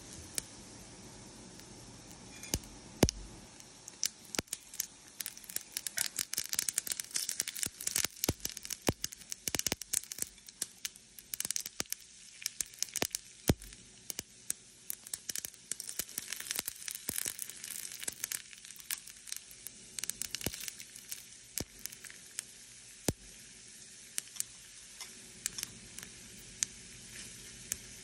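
Mustard seeds popping and crackling in hot oil as a tempering fries in a small pan, over a steady sizzle. The pops come thick and fast for several seconds in the middle, then thin out to occasional cracks.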